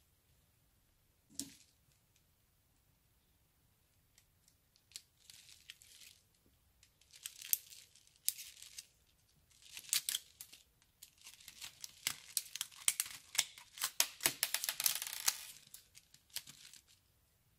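Plastic piping bag covered in alphabet cube beads crinkling and crackling as it is handled and snipped with scissors, with sharp clicks. The sound starts after a few quiet seconds and grows into a dense run of crackling near the end.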